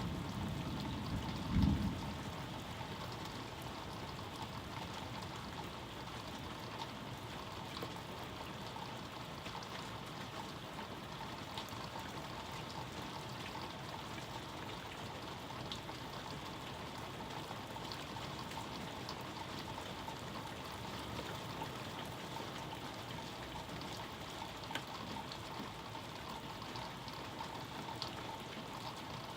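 Steady rain falling, with scattered drops ticking. A low rumble of thunder dies away about two seconds in.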